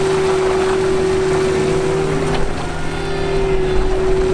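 ATAC-V Patrol's diesel engine running under load with a steady whine as the vehicle drives out of swampy mud.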